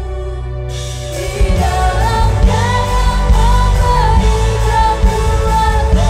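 Live worship band playing a gospel pop song: keyboard, bass and singing, with the drums and full band coming in about one and a half seconds in.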